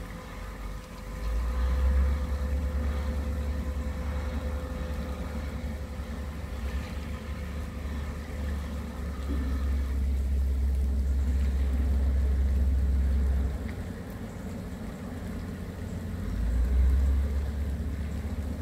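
Wind buffeting the microphone in gusts: a deep rumble that comes on about a second in, drops away for a few seconds past the middle and returns near the end. Under it is the faint steady engine drone of the plough dredger Fastnet Sound working out on the river.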